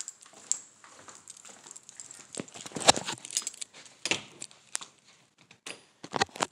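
Footsteps and handling knocks, with a doorknob turned and its latch clicking about four seconds in as a door is opened. The sound stops abruptly at the end.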